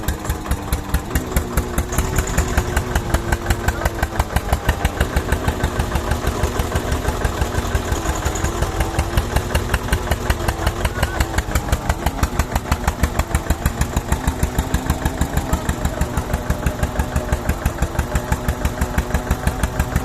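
An engine running steadily with an even beat of about five pulses a second.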